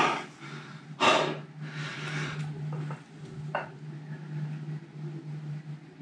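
A man breathing hard from exertion during a dumbbell ab exercise: three loud, forceful breaths in the first two and a half seconds, then quieter breathing, over a steady low hum.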